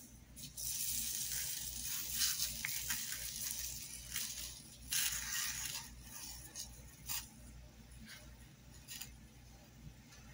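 Iron filings shaken from a shaker into a plastic tub, a hissing patter of fine metal grains: one long pour from about half a second in to about four and a half seconds, another about five seconds in, then a few short shakes. The filings dust a graphite-coated resin piece so that copper can later be deposited on it galvanically.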